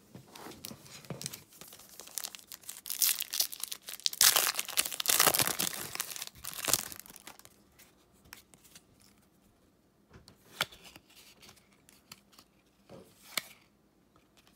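A foil trading-card pack being torn open and its wrapper crinkled, loudest a few seconds in. Then the cards are leafed through, with a few light flicks of card stock near the end.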